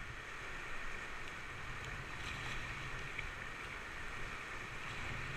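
Whitewater rushing steadily around a kayak running a river rapid, with splashing water and a low rumble of wind on the microphone.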